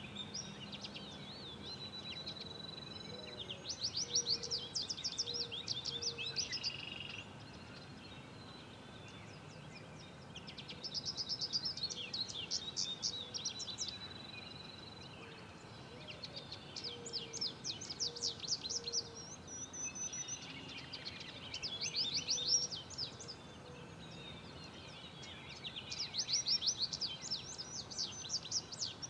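Songbirds singing in repeated bursts of fast, high trills a few seconds apart, with a few long thin whistled notes between, over a steady background hiss.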